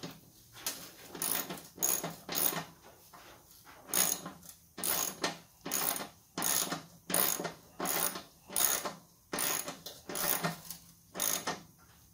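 Socket ratchet wrench clicking in repeated back-and-forth strokes, about two a second, as a loose mower-deck bolt is tightened.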